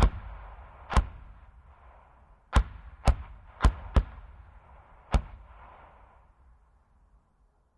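81 mm medium mortar firing repeatedly: a shot right at the start, then six more at uneven intervals over the next five seconds. Each sharp report is followed by a reverberating tail that dies away after the last one.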